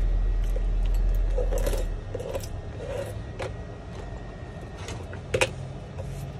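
Thin metal pry blade scraping and chipping laser-loosened shattered glass off the back of an iPhone 11, with small clinks of glass shards and one sharper click about five seconds in. A low hum underlies the first two seconds.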